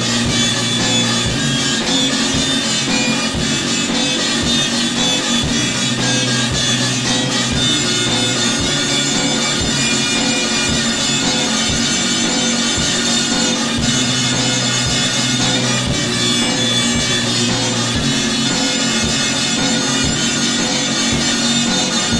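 Instrumental music: sustained droning, reedy pitched tones over a steady drum beat, no vocals.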